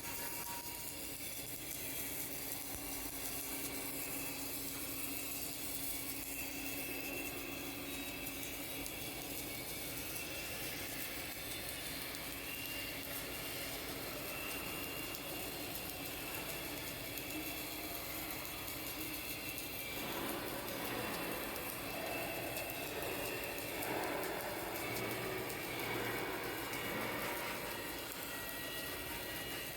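Steady hiss and hum of an automatic submerged arc welding setup running, changing in texture about two-thirds of the way through.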